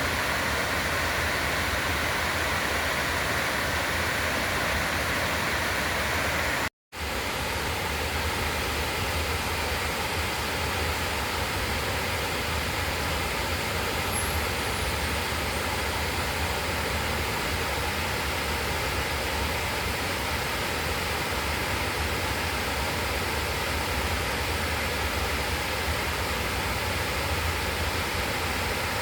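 River water rushing in a steady, even stream. The sound cuts out completely for a fraction of a second about seven seconds in, then carries on.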